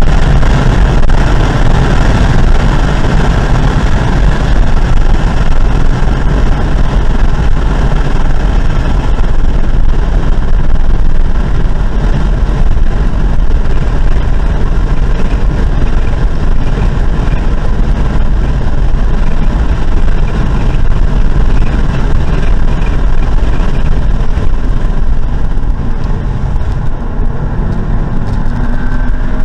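Car engine and road noise at track speed, heard from inside the cabin as a loud, steady roar, easing slightly near the end.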